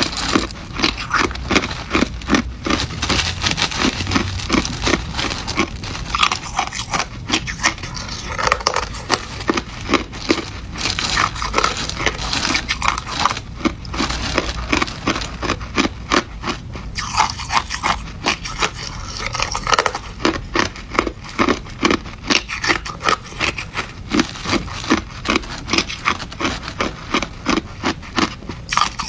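Hard clear ice being chewed, a steady run of sharp crunches. Underneath, loose ice chunks clink and a plastic bag crinkles as a hand digs through the ice.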